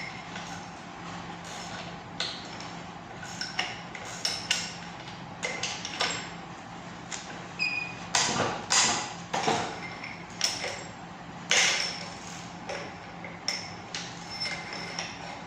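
Irregular metallic clinks and knocks of tools and buggy differential parts being handled and tapped, some strikes ringing briefly. The hardest knocks come around the middle.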